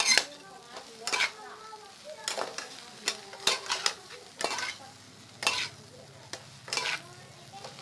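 Metal skimmer and spoon scraping and clanking against a metal wok as sliced onions and egg are stir-fried, in irregular strokes about once a second, with frying sizzle underneath.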